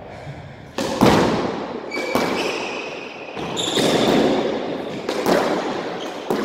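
Squash ball struck hard by rackets and off the court walls in a rally: a string of sharp, echoing cracks, the loudest about a second in. Brief high squeaks from court shoes on the wooden floor come between the hits.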